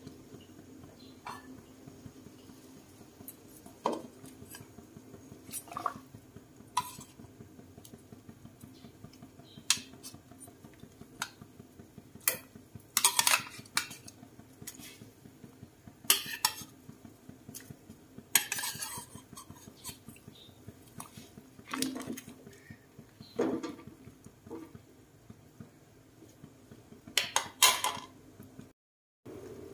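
A metal ladle clinking and scraping against a ceramic plate and an aluminium cooking pot as fish pieces are spooned into the curry: short, sharp clinks at irregular intervals, the loudest clusters in the middle and near the end.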